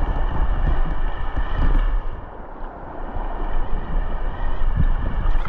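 Wind buffeting the microphone in uneven gusts over the steady rush of the river's flowing water.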